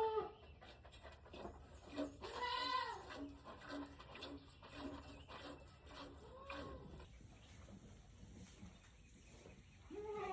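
Dairy goats bleating: a long wavering bleat about two seconds in, another around six and a half seconds, and a third at the very end, with a run of short low repeated sounds between the first two.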